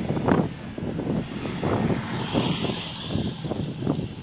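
A car driving past close by, with an irregular low rumble.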